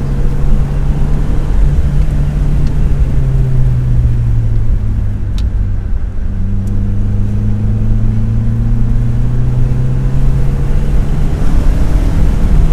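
Car engine pulling at high throttle, heard from inside the cabin over road noise. Its drone sags a little, dips briefly about halfway through as the throttle is lifted, then rises steadily in pitch as it pulls again.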